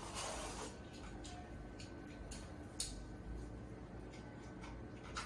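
A few light clicks and handling sounds from the chest belt strap and its connector being fitted to a home sleep-apnea test recorder, against quiet room tone. The most distinct click comes a little past halfway.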